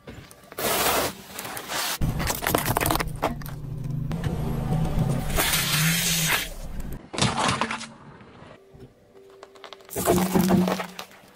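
A car tyre rolling slowly over small objects and crushing them: chocolate-coated candies, a plastic soda bottle and lollipops crunching and cracking in several separate bursts. A car engine idles low underneath for much of it.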